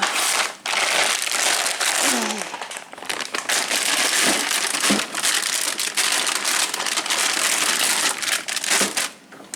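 Plastic food packaging crinkling and rustling steadily as it is handled.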